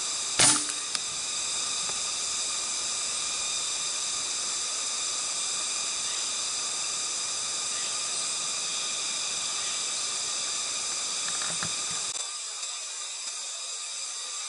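Steady high, buzzing drone of insects in the trees. A single loud, sharp crack comes about half a second in.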